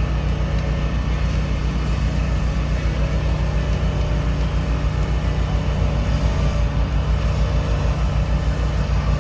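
Sawmill engine idling steadily under repeated hissing sprays from an aerosol can of white lithium grease; the first spray lasts about five seconds, then several shorter ones follow. The grease is being sprayed onto the head rig's chain to stop it rattling.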